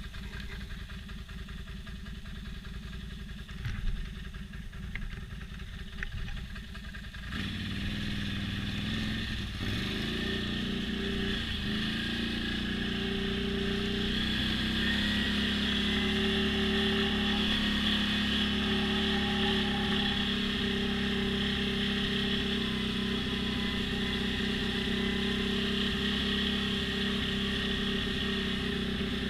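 ATV engine running low and steady, with a single thump about four seconds in. About seven seconds in it revs up and gets louder, dips briefly a couple of times, then runs steadily at higher revs.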